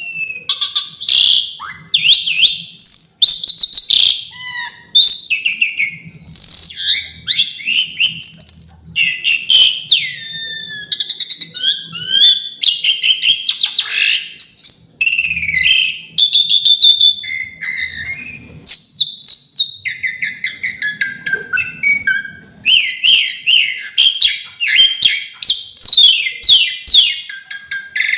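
Asian pied starling (jalak suren) singing a near-continuous, varied song of quick whistles, slurred chirps and harsh notes, the phrases changing every fraction of a second. The song is packed with 'isian', fill-in phrases copied from other birds.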